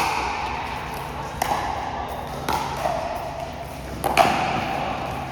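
Pickleball rally: paddles striking the plastic ball with sharp pops about a second apart, two coming close together near the end.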